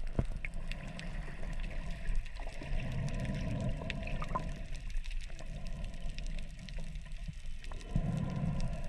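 Underwater sound picked up by a submerged camera: a muffled rush of water with low rumbling swells, dotted with many short faint clicks.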